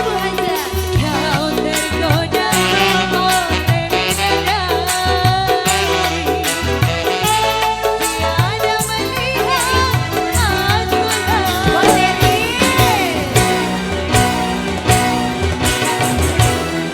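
Band music with a steady drum beat and a wavering, ornamented sung melody.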